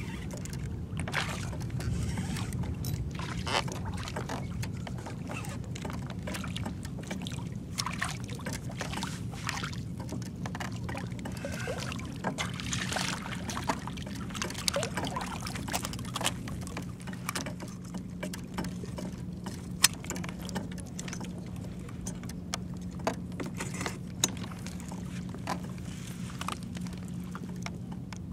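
Water sloshing and splashing around a kayak while a redfish is reeled in and landed, with scattered clicks and knocks of rod, reel and handling, one sharp click about two-thirds of the way through, over a steady low hum.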